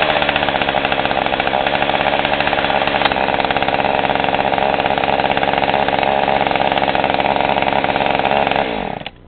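Jonsered 2036 two-stroke chainsaw idling steadily, then shut off near the end, the engine winding down and stopping.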